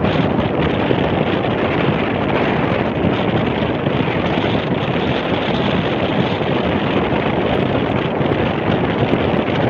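Wind buffeting the microphone aboard a sailing boat in gusty wind, a steady loud rush.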